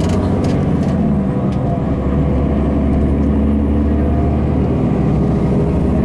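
Tour coach driving, heard inside the cabin: a steady low engine drone with road noise.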